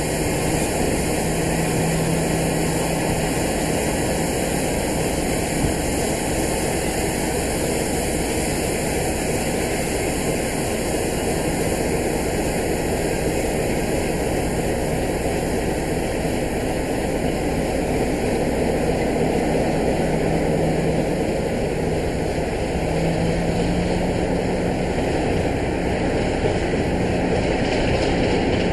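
Class 33 diesel locomotive's Sulzer eight-cylinder engine working hard as the train pulls away, a loud, steady drone with a low hum that swells a few times and grows a little louder near the end.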